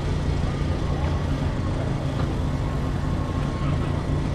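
Car engine running steadily, a constant low hum.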